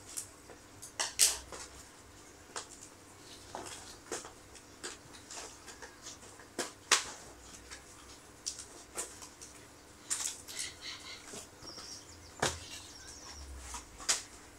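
Plastic packaging being handled and opened by hand: irregular crinkles, crackles and sharp clicks, a few much louder than the rest.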